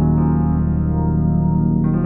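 Background music: soft piano or electric-piano chords held and changing slowly.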